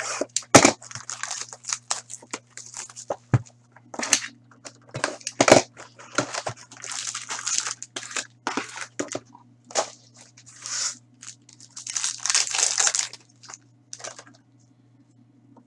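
A box cutter slitting the wrap of a cardboard box of Ice hockey cards, the box flap opened, then foil card packs crinkling and tearing open. It comes as an irregular string of sharp snaps and rustles over a faint steady low hum, and dies away near the end.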